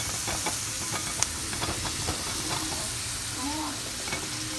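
Chopped onion and garlic sizzling in oil in a stainless-steel skillet: a steady frying hiss with scattered crackles and a sharp tick about a second in.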